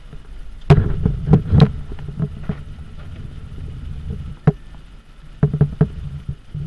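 Car cabin on a rain-soaked road: a steady low road rumble, with irregular sharp taps of heavy raindrops striking the windshield, bunched in the first two seconds and again near the end.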